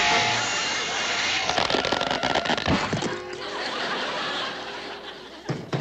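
Cartoon soundtrack music, joined about a second and a half in by a rapid flurry of sharp knocks and clatters, with more knocks near the end.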